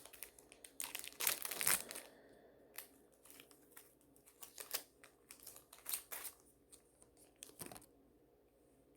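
A trading-card pack wrapper being torn open, with a loud rip about a second in, followed by scattered crinkling as the wrapper is handled and the cards are pulled out. The crinkling stops near the end.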